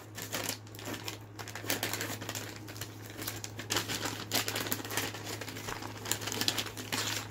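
Crinkling and rustling of the plastic MRE flameless heater bag and food pouch being handled, in many short, irregular crackles.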